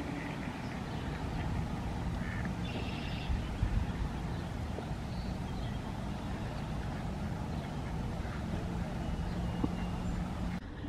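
Steady low outdoor rumble with a few faint, short mallard quacks about two and three seconds in.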